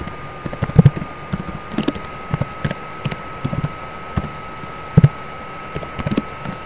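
Typing on a computer keyboard: irregular key clicks, a few a second, with the loudest strokes about a second in and near five seconds.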